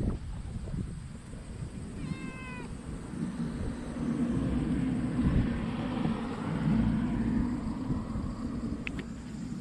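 A cat meows once, a short call about two seconds in that bends slightly down in pitch. Then fur rubs and brushes against the microphone as the cat presses up to the camera and is stroked, a low rumbling rustle that is the loudest part.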